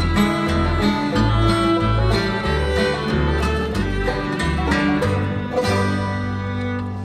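Old-time string band of fiddle, acoustic guitar, five-string banjo and upright bass playing an instrumental close with no singing. The band settles into a long held final chord near the end.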